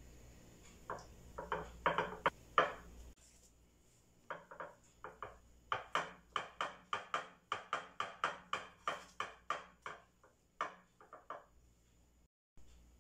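A metal spoon pressing shredded kunafeh dough down into a glass baking dish: a few scattered taps, then a steady run of about three short taps a second.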